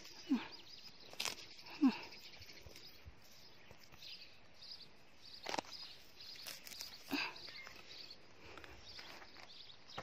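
Quiet outdoor background with two short low vocal sounds falling in pitch near the start, and a few sharp clicks and knocks from handling and footsteps in garden soil.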